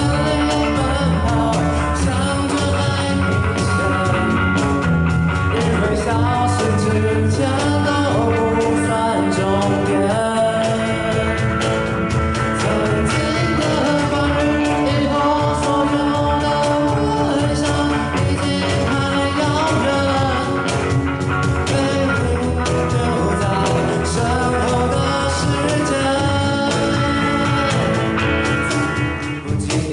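A live band playing a pop-rock song on guitars and drums, with a steady beat.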